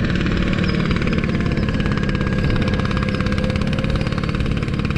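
Small crawler tractor's engine running steadily with a fast, even chug, with wind buffeting the microphone.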